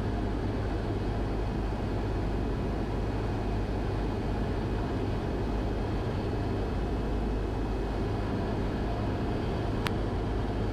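Steady drone of a Cessna 172's piston engine and propeller heard from inside the cabin in flight, with one short click near the end.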